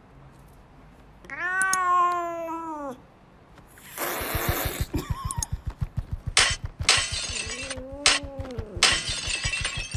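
A domestic cat meowing: one long, rising-then-falling meow about a second in, and a second, shorter and lower meow near the end. Between the meows come bursts of noise and a fast low pulsing.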